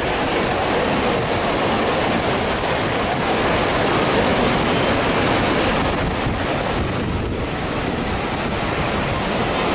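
Fast mountain stream rushing across the road at a water crossing, a loud, steady wash of water noise, with wind buffeting the microphone.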